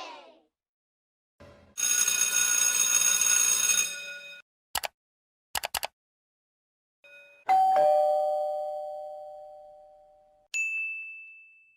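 A run of separate sound effects. First a harsh buzz about two seconds long with several steady tones in it, then a few quick clicks, then a two-note ding-dong doorbell chime that rings out and fades over about three seconds, and a short high ding near the end.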